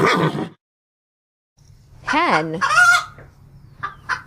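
The tail of a horse's whinny cuts off in the first half second. Then a hen clucks, a squawk followed by a run of short, separate clucks about four a second.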